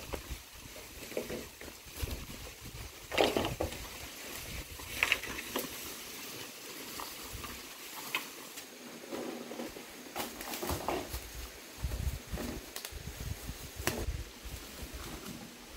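Rustling and scattered light knocks as long green bamboo poles are dragged and laid down on dry leaf litter, with footsteps.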